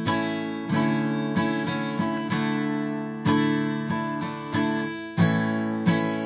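Acoustic guitar strummed in the song's chorus strumming pattern, chords ringing between strokes, with a brief damped break about five seconds in.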